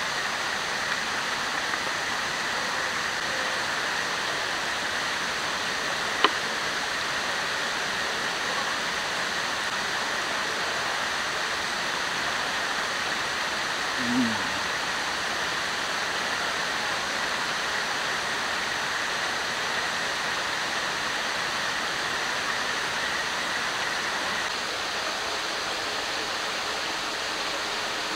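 River water rushing steadily. About six seconds in there is a single sharp click, and about halfway through a brief low sound.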